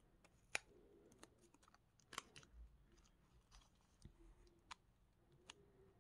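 Faint, scattered clicks and crinkles of a crystal in black plastic wrapping being picked up and turned over in the hands.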